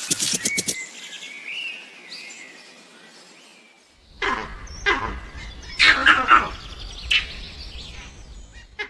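Bird calls: a faint wavering chirp in the first seconds, then after a change of background about halfway through, several short, loud calls about a second apart.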